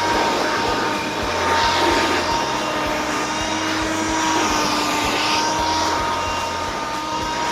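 Black & Decker Dustbuster cordless handheld vacuum running steadily: a high motor whine over rushing air. This is its test run after repair, now switching on and working normally where it previously would not turn on.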